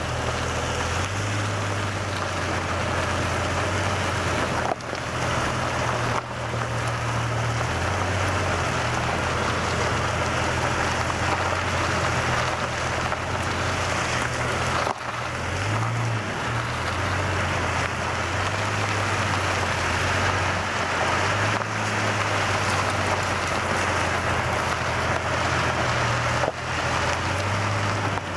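1998 Jeep Cherokee driving off road on a sandy dirt trail: a steady hiss of the right front tire rolling over sand and grit, over a low engine hum that rises and falls in pitch several times.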